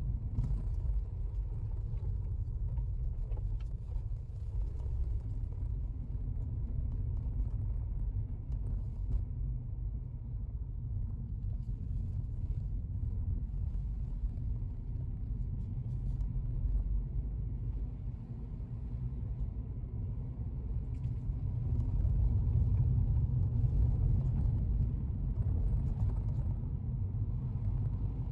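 Car driving, heard from inside the cabin: a steady low rumble of engine and road noise that grows louder for a few seconds about three quarters of the way through.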